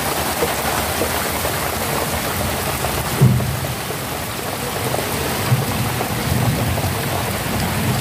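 Heavy rain falling steadily on the paddies and pond, an even hiss, with a brief low thump about three seconds in and some low rumbling after it.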